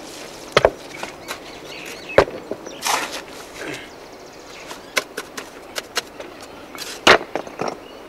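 Hand hammer knocking on rough stones as they are dressed and set in a stone wall: a few sharp, irregular knocks, the loudest about seven seconds in, with clatter and scraping of stones in between.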